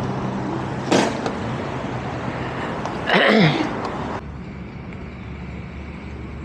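A steady, low hum from an idling vehicle engine, broken by two short noisy bursts, one about a second in and a louder one about three seconds in. About four seconds in it drops to a quieter, steady low rumble.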